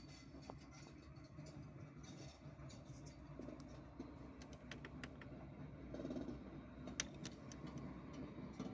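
Short Amtrak train led by an ALC42 Charger locomotive passing at a distance: a faint low rumble that grows a little louder, with scattered sharp clicks and rattles.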